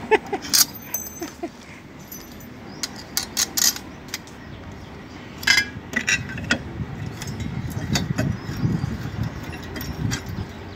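Metal clinking and clattering as a new lawnmower blade, its washer and bolt are handled and fitted onto the mower's blade spindle: a scatter of sharp clinks, with a low rumble coming in from about seven seconds in.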